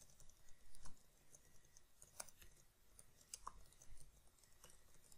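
Faint computer keyboard typing: soft, irregular key clicks.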